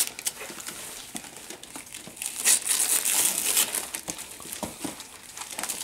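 Gift wrapping paper being torn and crinkled by hand as a present is unwrapped, in irregular rustling bursts, busiest a couple of seconds in.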